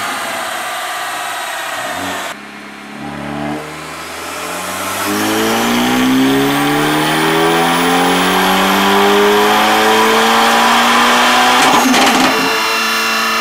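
Hyundai Veloster N's turbocharged 2.0-litre four-cylinder, running an upgraded turbo and ECU tune, making a full-throttle run on a chassis dyno in fourth gear. After a sharp drop about two seconds in, the engine note climbs steadily in pitch for about eight seconds, then breaks off near the end with a short burst of noise as the throttle closes, settling to a lower steady note.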